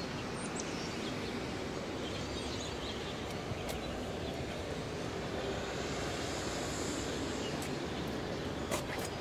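Steady outdoor background noise with a low hum and faint scattered chirps, and a couple of light clicks near the end.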